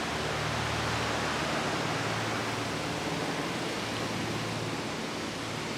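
Steady, even rushing noise of ocean surf on a beach, with a faint low hum under it that fades after the first couple of seconds.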